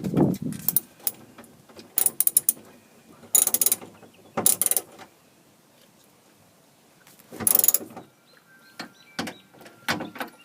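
Ratchet wrench clicking in several short bursts with pauses between, as nuts on a minivan's back door handle mechanism are undone, with a low thump at the start and light metal clinks near the end.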